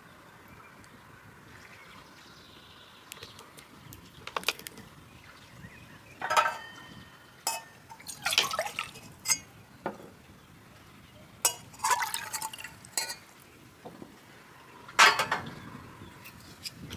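Water poured in several short splashes from a plastic bottle into small cups and from a cup into a stainless steel Turkish coffee pot (cezve), with a few light knocks of cups and pot between the pours.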